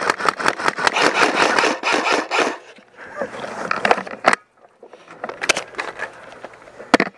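Rustling and scraping of clothing and gear against a head-mounted camera, with quick footsteps on dry dirt. It is busy for the first two and a half seconds, then goes quieter, with a few single sharp clicks.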